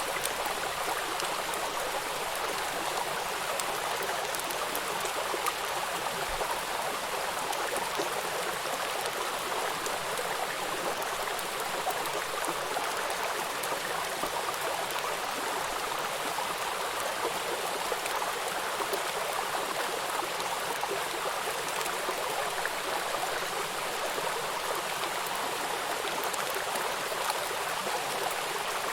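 Steady rain falling, an even hiss with many small drop ticks throughout.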